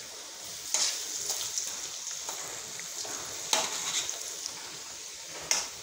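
Pakoras deep-frying in hot oil in an iron kadhai, a steady sizzle. Three brief louder moments come as a slotted spoon stirs and turns them over.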